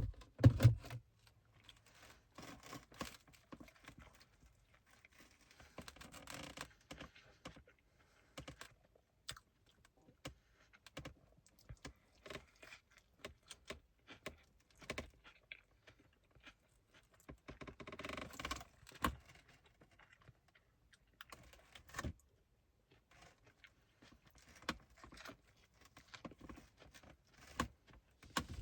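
Close-up eating sounds of a burger and fries: chewing and handling of the food, with scattered small clicks and knocks and a heavier thump near the start.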